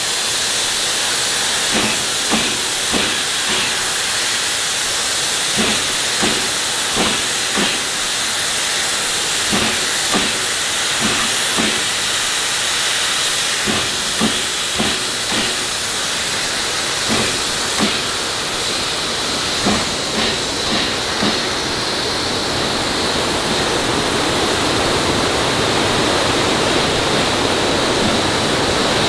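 Steady steam hiss from narrow-gauge K-28 steam locomotive 473, with irregular dull knocks about once a second over the first twenty seconds. Near the end the rushing of a whitewater river takes over.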